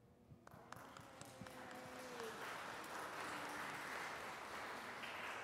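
Congregation applauding: a few scattered claps about half a second in, building to steady applause by about two seconds.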